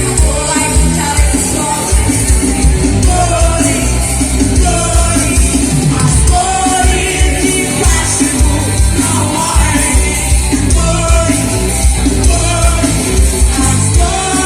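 Live band playing a rock song with a steady beat.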